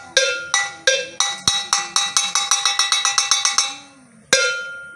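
A hand-held metal bell struck with a stick, each stroke ringing on. A few spaced strokes give way to a fast run of about six strokes a second, which stops near four seconds in. One last ringing stroke follows.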